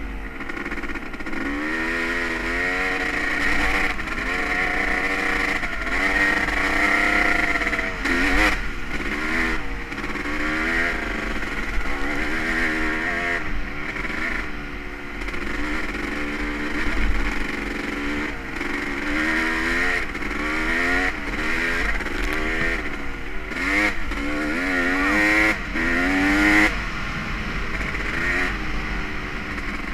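Honda CR250R's single-cylinder two-stroke engine being ridden, the revs rising and falling again and again as the throttle is worked on and off.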